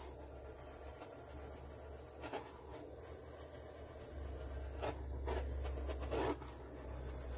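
Faint steady hiss of a small butane torch heating heat-shrink tubing over spliced wires, with a few soft handling knocks.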